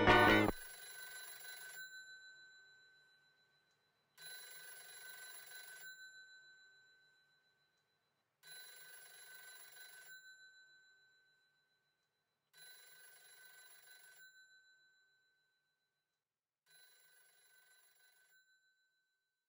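A telephone ringing five times, one ring about every four seconds, each ring fainter than the last.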